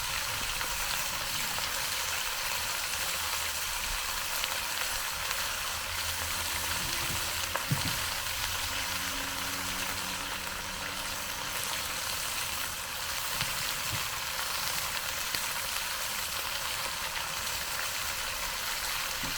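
Chicken pieces sizzling steadily as they brown in hot fat in a cast iron skillet, with one sharp click about eight seconds in.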